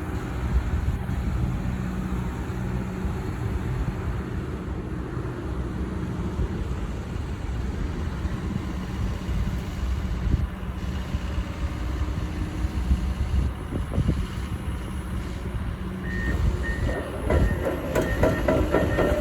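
Komatsu PC170LC-11 hydraulic excavator's diesel engine running steadily. Near the end its travel alarm starts beeping and the steel crawler tracks start clattering as the machine moves off.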